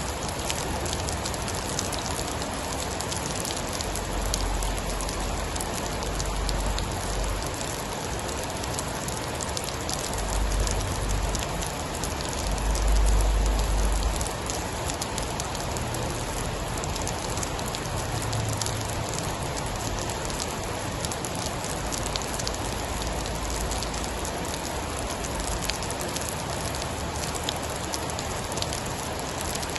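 Steady heavy rain hissing and pattering on a surface, with a low rumble of distant thunder swelling three times, loudest about halfway through.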